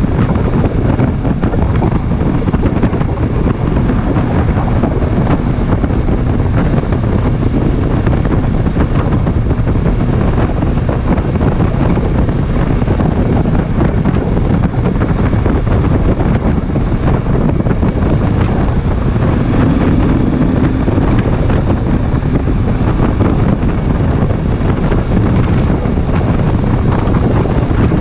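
Wind buffeting the microphone over the steady running of a Kawasaki VN2000's V-twin engine while the motorcycle cruises at highway speed.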